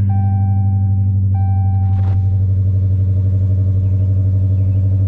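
A 2018 Dodge Challenger R/T Scat Pack's 6.4-litre HEMI V8, with Flowmaster exhaust, idling steadily just after a cold start. A repeating in-car warning chime sounds over it and stops about two seconds in, along with a brief noise.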